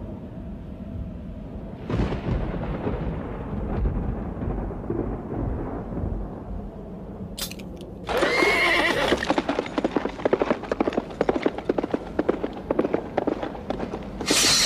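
A low rumble swells suddenly about two seconds in; about eight seconds in a horse whinnies and many horses break into a gallop, a dense rapid clatter of hooves as cavalry charges.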